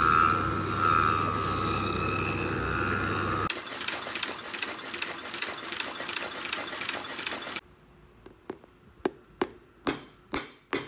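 A shoe-repair finishing machine's sanding wheel running steadily as a boot sole is held against it, cut at about three seconds in to a sole-stitching machine sewing a leather midsole in rapid, even strokes. Near the end come about eight sharp taps of a hammer driving tacks into the leather midsole, the last ones loudest.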